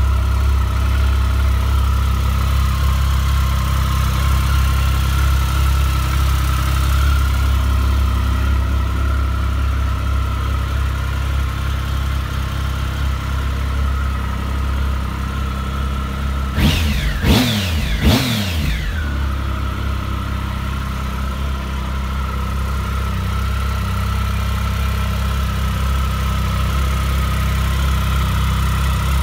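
Triumph Speed Triple 1050's three-cylinder engine idling steadily, its throttle blipped twice a little past the middle so the revs shoot up and drop back to idle.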